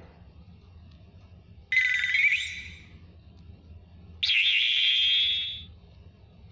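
Two short, high-pitched electronic sound effects about two and a half seconds apart, each fading out: the first has a rising sweep, the second a brief warble that settles into a steady ringing tone. They are stock video-editing sound effects, ringtone-like jingles of the kind dropped into YouTube edits.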